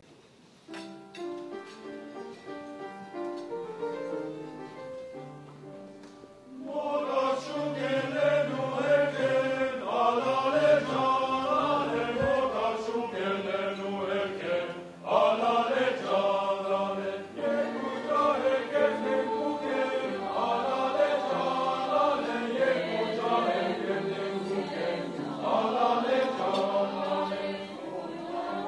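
A choir singing, soft and sparse at first, then swelling into a fuller, louder passage about six and a half seconds in.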